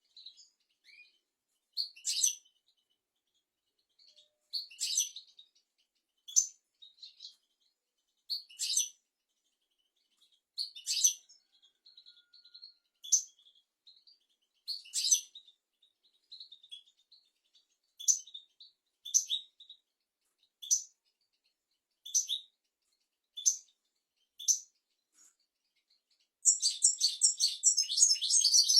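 European goldfinch singing: short, high chirping notes spaced about a second apart, breaking into a fast, continuous twittering phrase near the end.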